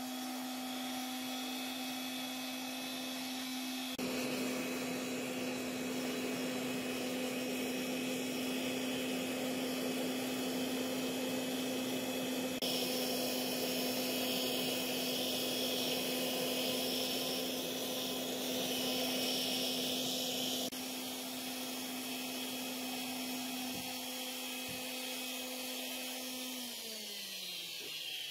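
Propane burner of a homemade gas forge running with a steady rushing noise and a low hum. Near the end the hum slides down in pitch and the sound fades as the gas is turned down.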